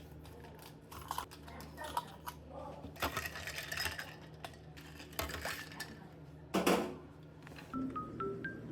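Irregular clicks, taps and short rustles of small objects handled at a desk, over a steady low hum, with one louder scrape or knock about six and a half seconds in. Near the end, a melody of marimba-like mallet notes begins.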